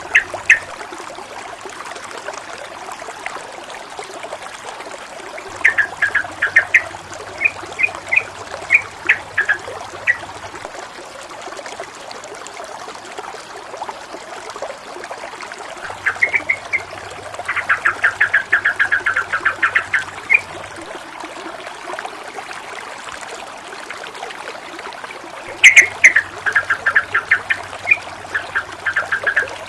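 Babbling running water, steady throughout. Three bursts of rapid, repeated bird chirping come over it: about six seconds in, in the middle, and near the end.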